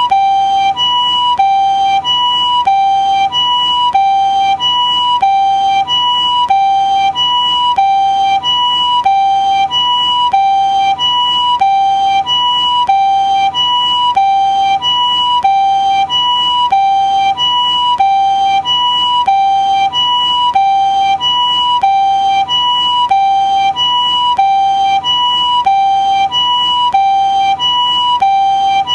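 Japanese ambulance two-tone siren sounding its "pee-po" call: a higher and a lower tone alternating evenly, each held about two-thirds of a second, repeating steadily without change in pitch or loudness.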